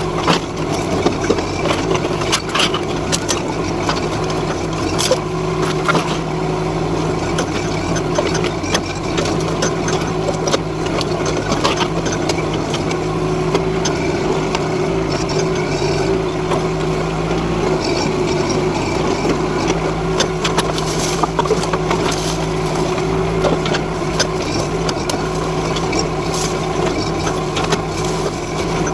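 Mini excavator engine running steadily while the machine works. Scattered irregular knocks and clatter come as the bucket moves through boards and corrugated metal debris.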